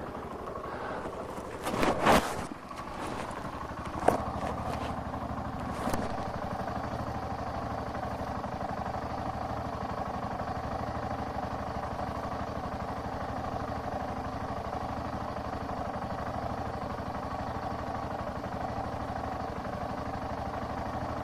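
Car engine running steadily, heard from inside the cabin, with a loud knock about two seconds in and two sharper clunks near four and six seconds.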